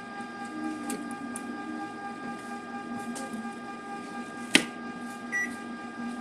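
Table knife cutting fruit on a plate: a few light clicks and one sharp clack of the blade hitting the plate about four and a half seconds in, followed by a short beep, over a steady electrical hum with several high tones.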